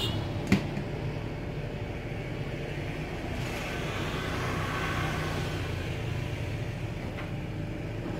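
Steady street traffic noise, a low rumble of passing vehicles, with a single sharp click about half a second in.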